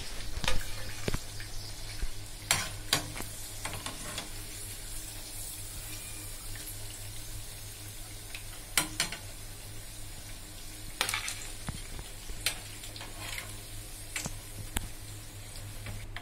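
Chickpea-batter pakoras deep-frying in hot oil in a metal pan, a steady sizzle, with scattered sharp clicks of a metal slotted spoon against the pan as the fried pakoras are lifted out.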